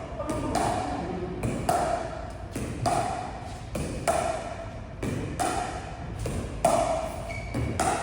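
Pickleball paddles striking the ball in a steady back-and-forth dink or volley rally: a hollow pock with a short ring about once every second.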